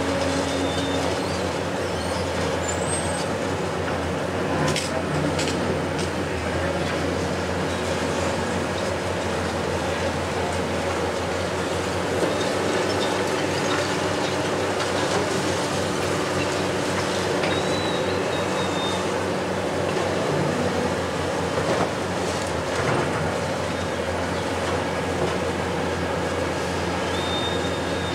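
Hitachi 870 XXL long-reach demolition excavator working, its diesel engine and hydraulics running steadily while the attachment breaks into concrete. A few short, high metallic squeals come through now and then.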